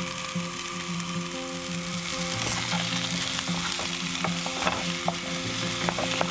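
Diced zucchini sizzling as it sautés in a frying pan. About two seconds in the sizzle gets louder and a wooden spatula stirs it, with light scraping clicks against the pan.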